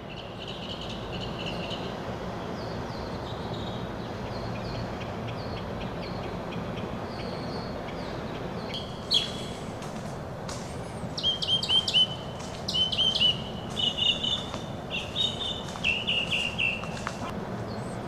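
Outdoor birds chirping and singing in short repeated phrases, louder and busier in the second half, over a steady background hum of ambient noise.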